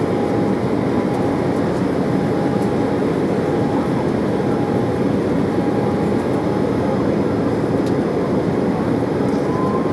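Steady jet cabin noise inside an Embraer 190 airliner in flight: the even rush of its turbofan engines and airflow, with a faint steady whine above it.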